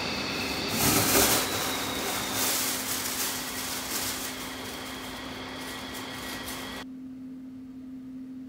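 Air rushing out of a ceiling HVAC vent, driven by the air handler's fan, with a louder rustling whoosh about a second in as the plastic grocery bag tied to nylon cord is blown through and out of the vent. The rushing cuts off suddenly near the end, leaving a steady low hum.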